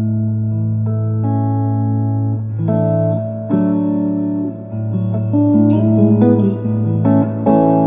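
Vermona Regent 300 K electronic organ being played: a low bass note held steady underneath while chords and single melody notes change above it, each note sustaining flat and stopping cleanly, with faint key clicks at the note onsets.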